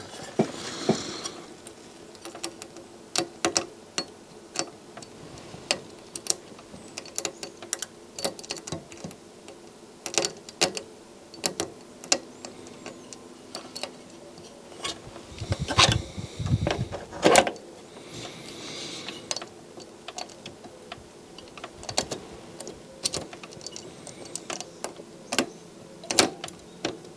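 A small screwdriver clicking and scraping against the pins of an STK hybrid amplifier module while a pin is pressed back into the circuit board: scattered sharp clicks, with a denser, louder cluster a little past halfway.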